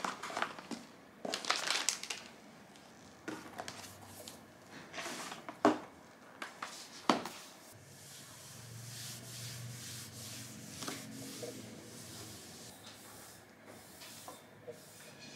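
Objects being handled: scattered rustling and sharp knocks or clicks, two of them louder about six and seven seconds in, with a low steady hum for a few seconds after that.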